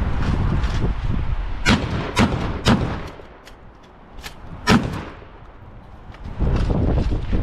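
Gunshots from a shouldered long gun: three in quick succession about half a second apart, then a single shot about two seconds later. A low rumble of wind on the microphone runs between them.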